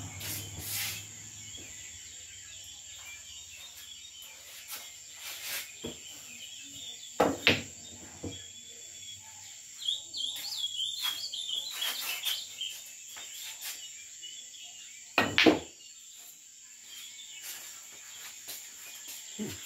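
Pool balls knocking: a cue striking the ball and hard balls colliding on the table, a few sharp knocks spread out, the loudest about seven and fifteen seconds in. Insects trill steadily behind them, and a bird chirps for a couple of seconds near the middle.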